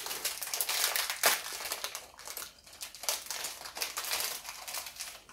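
Plastic packets of Lego pieces crinkling and rustling as hands rummage through them, an irregular run of small crackles.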